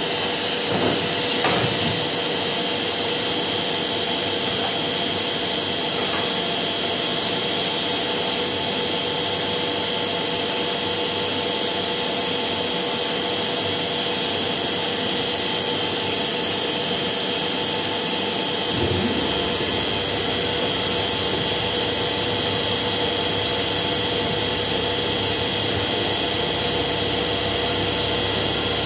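Masterwood CNC machining centre running steadily: an even whooshing hum with a steady high whine over it.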